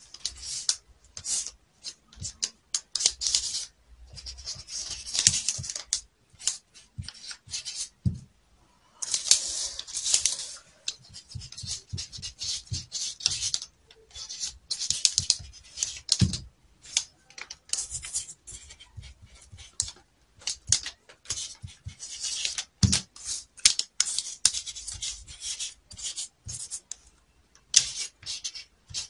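Felt-tip marker scratching on brown pattern paper in short, stop-start strokes as lines and lettering are drawn, with a few soft knocks on the table.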